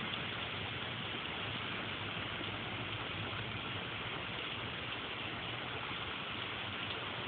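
Heavy rain falling steadily, an even hiss without letup, with a faint low hum underneath.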